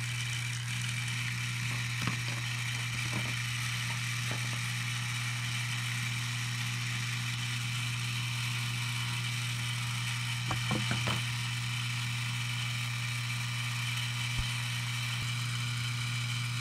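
Lionel 3656 cattle corral running: its vibrator mechanism buzzes with a steady low hum while the cattle figures rattle along the vibrating walkways. A few light knocks come about two seconds in and again around ten to eleven seconds in, as a stuck cow figure is nudged by hand.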